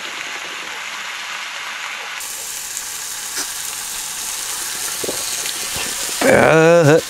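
Beef sirloin steak sizzling steadily in a grill pan on a portable gas stove. Near the end a man lets out a loud, drawn-out, wavering vocal exclamation after a shot of soju.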